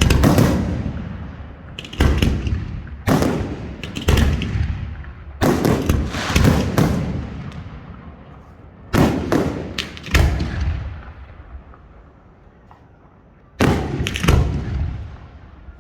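Large professional category F4 display fireworks firing close by: about a dozen sharp booms at irregular intervals, some in quick runs, each trailing off in a long rolling echo.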